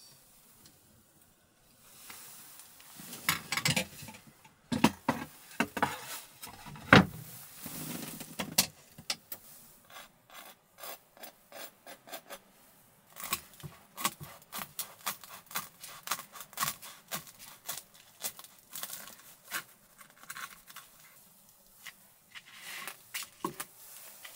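Kitchen utensils handled around a freshly toasted hot sandwich: scraping and rubbing for the first several seconds, then a long run of sharp clicks and light knocks.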